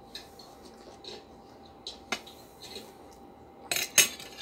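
Metal forks and spoons clinking against plates as they are handled: a few scattered clinks, then a quick cluster of loud clinks near the end.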